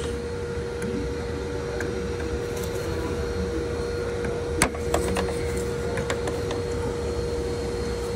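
Steady machine hum with a constant tone, and a single sharp click a little past halfway.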